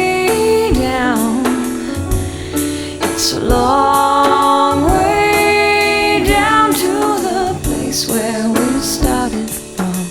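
Background music: a pop song with sung vocals over a steady drum beat.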